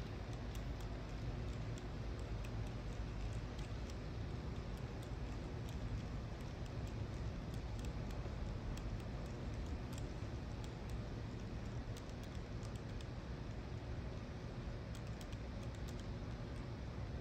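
N scale model freight train of boxcars and piggyback flatcars rolling past on the track: light, irregular clicking of the wheels over the rails over a steady low hum.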